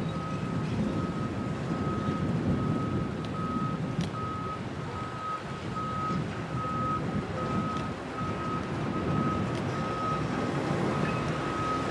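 A construction machine's reversing/travel alarm beeping steadily, one evenly spaced single-tone beep a little over once a second, over the low running of excavator diesel engines.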